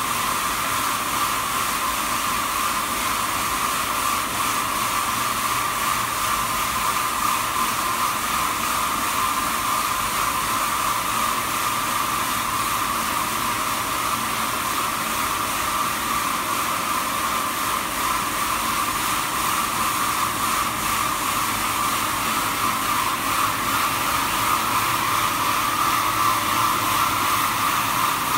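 Jonsen Sander SD300-WJS+3D wet deburring machine running, its planetary disk brush heads spinning over the parts on the magnetic conveyor: a steady, even whir with a strong mid-pitched hum over a hiss, a little louder near the end.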